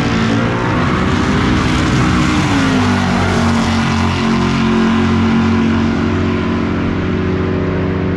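Loud car engine at high revs; its pitch eases down about two and a half seconds in and then holds steady.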